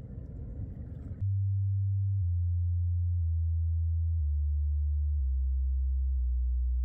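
A deep pure tone, steady in loudness, that steps down in pitch about once a second. It cuts in suddenly about a second in, replacing a low outdoor rumble.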